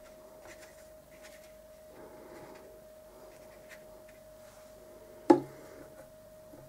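Faint dabbing and rubbing of a round watercolour brush on paper over a faint steady hum, then one sharp knock about five seconds in as the brush goes into a plastic water pot.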